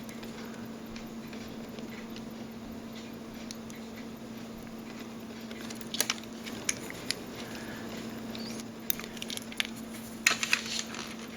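Small clicks and scratches of watchmaker's tools (tweezers and screwdriver) handling screws on a quartz watch movement, over a steady low hum. The clicks bunch up about six seconds in and again near the end.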